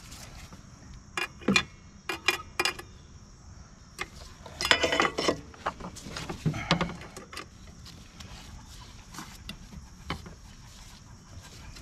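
Metal hand tools clinking: locking pliers and a wrench picked up, handled and set against the engine's billet aluminium filter cap. There are a few sharp clicks in the first three seconds and a longer metallic clatter about five seconds in.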